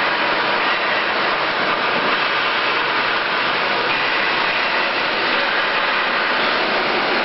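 Automatic thermal shrink-film wrapping machine running, a steady, even rushing noise from its heat-shrink tunnel's hot-air circulation and conveyor.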